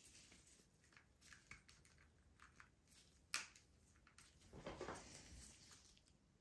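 Faint handling noises from gloved hands moving a plastic action figure and its small accessories: scattered light plastic clicks, one sharper click about three seconds in, and a brief rustle of glove against plastic a little later.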